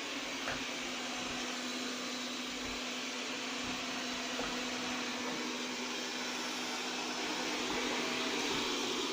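Mi Robot Vacuum-Mop P running, its suction fan and motor making a steady whirring hum with a low steady tone, growing slightly louder toward the end.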